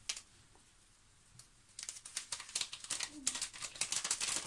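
Small paper sachet being torn open and crinkled by hand: a quiet start, then a dense run of rapid crackles from about two seconds in.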